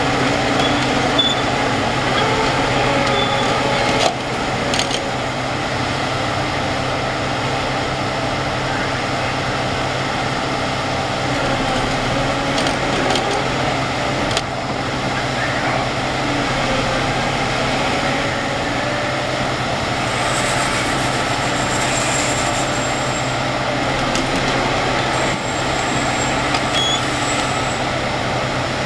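Caterpillar 5130 mining excavator's big V16 diesel running steadily under load, with a hydraulic whine that drifts up and down in pitch as the boom and bucket move. A couple of sharp knocks come through, one about four seconds in and another near the middle.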